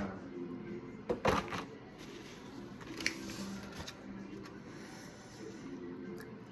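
Eating and food-handling sounds: a sharp click, then a short louder rustling scrape about a second in, and another click about three seconds in, over a faint steady background hum.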